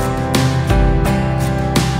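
Background music: a guitar strumming steadily, about three strokes a second, over sustained chords.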